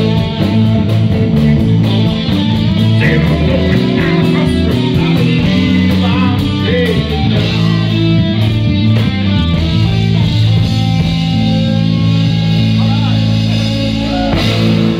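Live blues-rock band playing loud: overdriven electric guitars over a drum kit with cymbals. Near the end the drums land a big crash.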